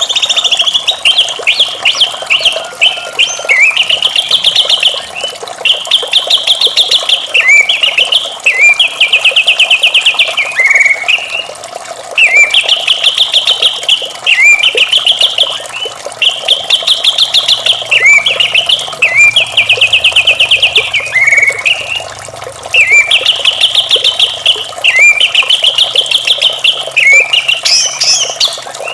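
White-rumped shama (murai batu) singing: loud, repeated phrases of fast rattling trills, each about a second long and ending in a downward slur, with short pauses between them.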